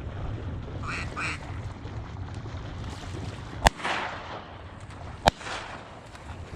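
Two short duck quacks about a second in, then two shotgun shots about a second and a half apart, each ringing out briefly over steady wind and water noise.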